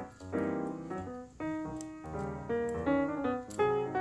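Background piano music, a run of single notes played in a light, even rhythm.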